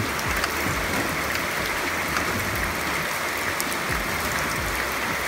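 Steady rain falling, an even hiss that neither rises nor falls.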